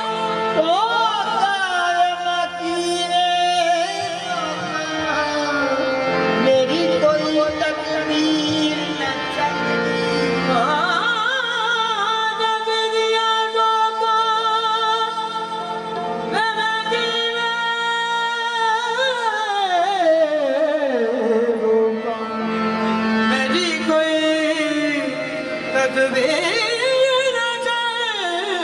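Qawwali singing with harmonium accompaniment: a male lead voice in long, sliding melismatic phrases over sustained harmonium notes, with one long falling run past the middle.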